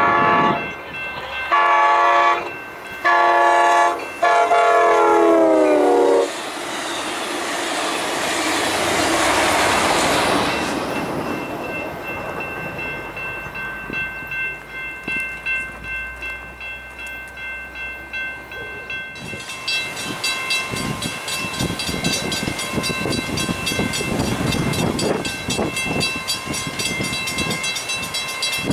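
Diesel locomotive air horn sounding the grade-crossing signal, long, long, short, long, with the last blast dropping in pitch as the train passes. Then comes the rush of the train going by at speed, fading away. After a cut, a steady, rapidly repeating ringing goes on with wind buffeting the microphone.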